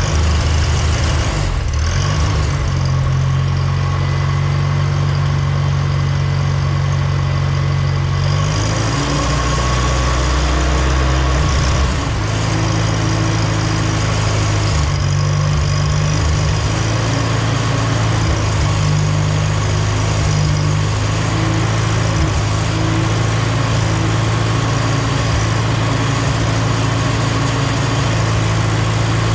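International Cub Lo-Boy tractor's engine running steadily, freshly started, its note changing about eight seconds in.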